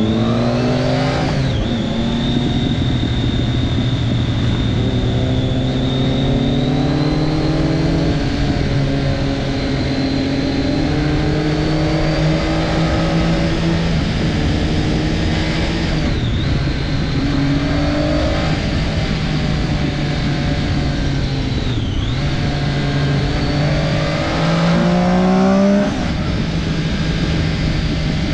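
Triumph Daytona 675's three-cylinder engine under way, its pitch climbing under acceleration and dropping back several times as it changes gear or rolls off. The loudest pull comes near the end, just before a drop, with a thin steady high whine running above the engine throughout.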